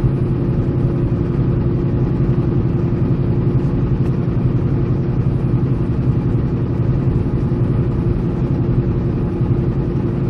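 Semi-truck engine and road noise heard from inside the cab while driving: a steady, loud, low drone with a constant hum.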